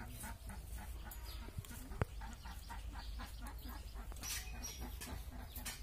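Quick, repeated scraping strokes of a fixed curved boti blade peeling the rind off a green gourd, about three a second, with one sharp click about two seconds in.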